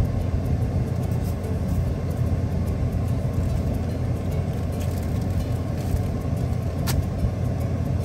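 Car engine and road noise heard inside the cabin while driving: a steady low rumble. A single sharp click comes about seven seconds in.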